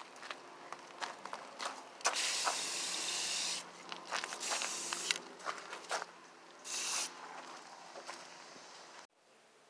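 MIG welder laying weld on a rust-repair patch in a car's inner rocker: crackling, hissing bursts, the longest about two seconds in lasting a second and a half and a shorter one around seven seconds. The sound cuts off suddenly near the end.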